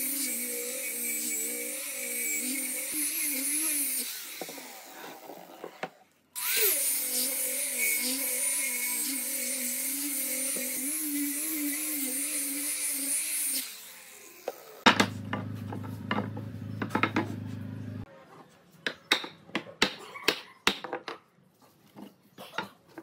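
Small electric angle grinder with a sanding pad, sanding a pine panel: a steady high motor whine whose pitch wavers as the pad is worked over the wood. It winds down about four seconds in and starts again, and stops for good about two-thirds of the way through. After that come a low hum and scattered sharp knocks and clicks of wooden strips being handled on the bench.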